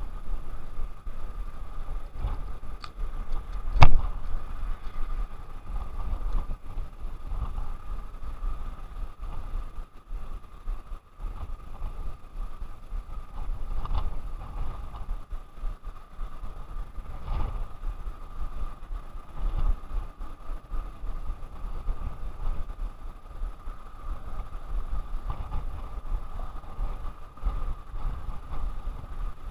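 Wind rumbling on the microphone, gusting unevenly, with a sharp click about four seconds in and a few fainter clicks later.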